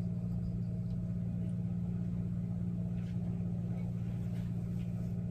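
Electric stand mixer motor running steadily with a low, even hum as it mixes cake batter in a steel bowl. A few faint light clicks sound over it.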